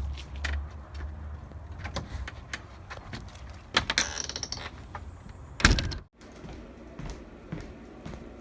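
Door and latch sounds: scattered clicks and knocks, a short scraping rush about four seconds in, and a loud heavy thump just before six seconds.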